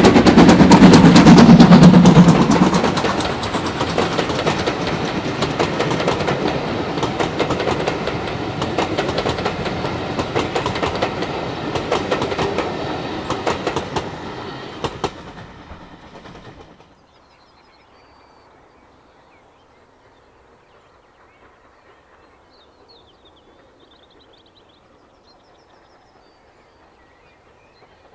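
Steam train passing close at speed. The locomotive's exhaust is very loud for the first couple of seconds, then the carriages' wheels clatter over the rail joints. The sound fades away about sixteen seconds in, leaving quiet with a few faint bird chirps.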